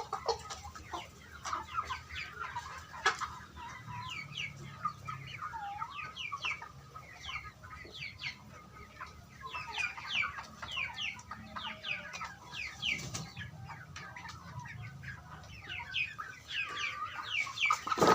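A flock of young laying-hen pullets calling: many short, high, falling peeps mixed with clucks, over a faint low hum.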